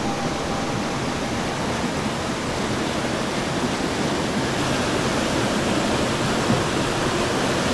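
Steady rush of water tumbling over a small rocky waterfall and through shallow rapids, heard up close.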